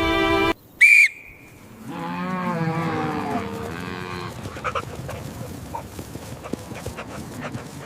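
A short, sharp high whistle about a second in, then a cow mooing once in a long, wavering call, followed by scattered light knocks. Background music cuts off just before the whistle.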